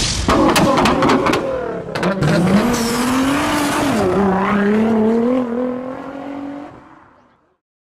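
Car engine revving sound effect: several sharp cracks in the first two seconds, then a wavering engine note that dips and rises, fading away near the end.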